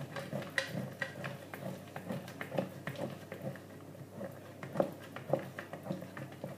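Cheese being grated by hand on a grater: a run of short strokes, a few a second, unevenly spaced.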